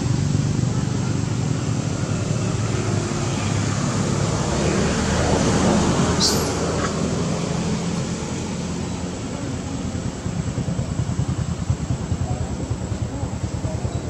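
A motor engine running with a steady low hum that turns into a fast low throbbing in the second half, with a brief high squeak about six seconds in.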